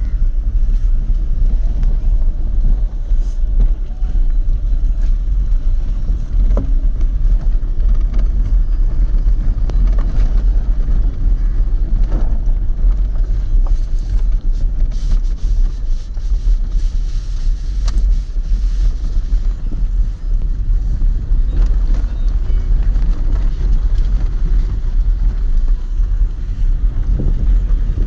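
Wind buffeting the phone's microphone, a steady low rumble with a few faint clicks and knocks.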